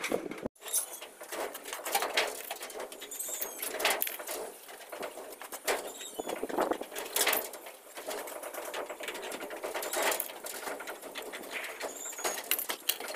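Hand tin snips cutting thin painted steel flashing: a run of short, sharp snips and clicks, with the sheet metal rattling as it is cut and bent.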